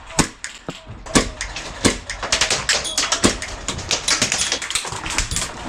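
Airsoft gunfire: a few separate sharp clicking shots, then rapid clicking shots from about two seconds in.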